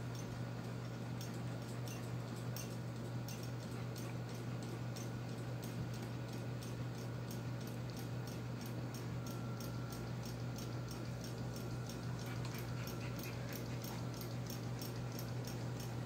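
Harbor Breeze Armitage ceiling fan running at high speed: a steady low hum with the harmonic vibration it has only at high speed, plus a faint regular ticking.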